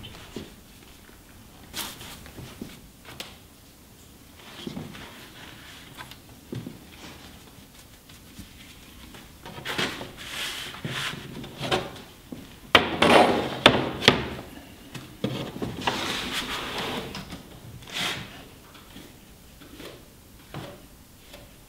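A rag rubbing and dabbing across a wet sheet of watercolour paper, with rustling of the paper and scattered taps and knocks of tools and the sheet against the table. The sharpest knocks come in a cluster about halfway through, followed by a few seconds of steady rubbing.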